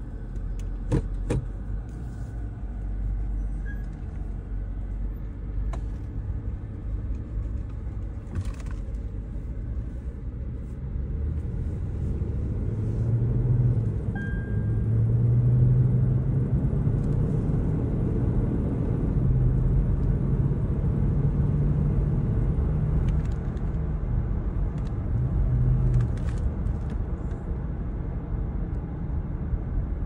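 Toyota Land Cruiser driving, heard from inside the cabin: a steady low rumble of engine and road noise, with a humming tone that grows louder about halfway through. A few sharp clicks about a second in.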